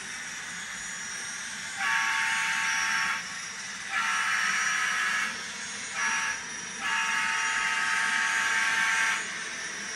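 An N scale Union Pacific GTEL gas turbine locomotive model's sound decoder blowing its horn through the model's small speaker in the grade-crossing pattern: two long blasts, a short one and a final long one, over a steady hiss.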